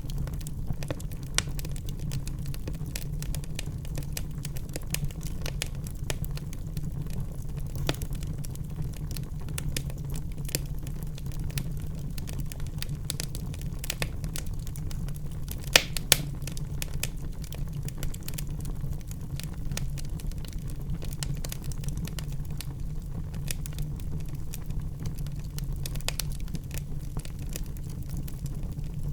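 Wood fire crackling in a fireplace: frequent sharp pops and snaps over a steady low rumble, with two louder pops about halfway through.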